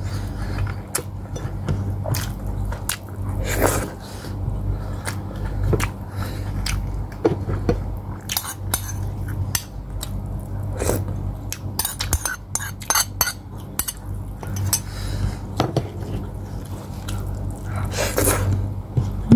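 Close-up eating sounds: chewing and mouth smacks on rice and pork hock, with scattered clicks of a metal spoon against a ceramic bowl and plate. A steady low hum runs underneath.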